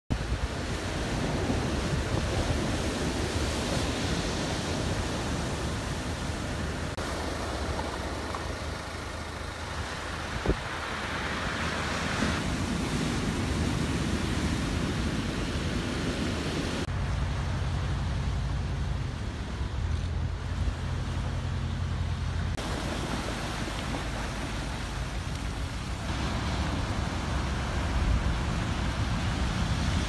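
Heavy surf from a typhoon swell crashing continuously onto the shore, rocks and breakwater, with wind rumbling on the microphone. The sound of the surf shifts abruptly several times.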